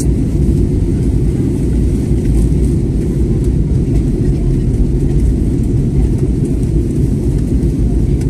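Steady low rumble of an airliner's jet engines and rushing air, heard from inside the passenger cabin in flight.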